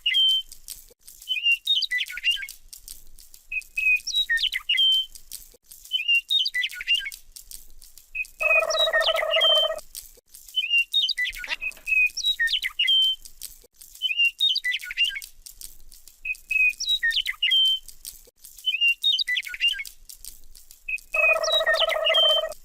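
Electronic bird-chirp sound: the same short, high chirping phrase repeated about every two and a half seconds, as a looped sound effect. A longer buzzing tone sounds twice, about eight seconds in and near the end.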